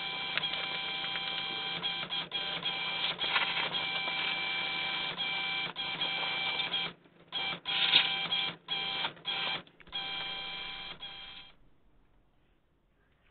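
A handheld electric power tool, such as one used on the car's underbody, runs with a steady whine for about seven seconds. It then cuts in and out in a string of short bursts and stops about two seconds before the end.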